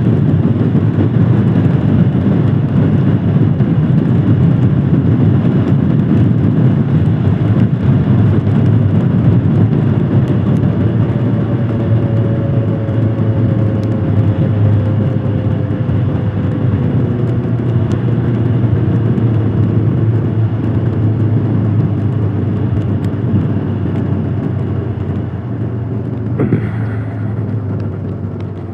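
Royal Enfield Scram 411's single-cylinder engine running steadily under way, easing off near the end.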